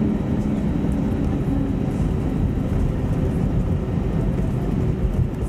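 Steady rumble and rush of airliner cabin noise inside an Airbus A320neo, from its engines and the airflow around the fuselage.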